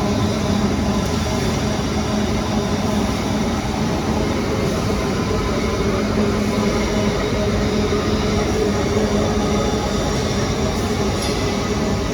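Industrial machinery running: a loud, steady rumble with a constant hum that does not change.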